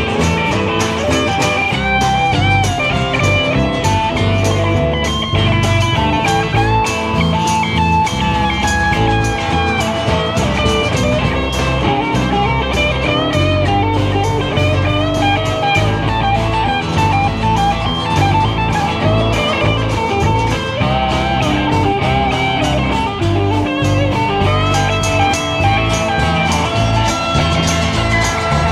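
Live band playing amplified guitars over a drum kit, a continuous song with a steady beat.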